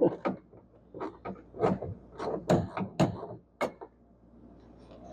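Irregular sharp clicks and knocks of dashboard parts being worked loose and handled, about a dozen over the first four seconds, then quiet.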